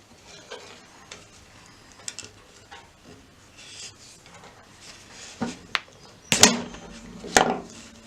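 Scattered small clicks, clinks and rustles of hand tools and electrical wire being handled while stripping the insulation and fanning out the bare strands. A few louder sharp clacks come near the end.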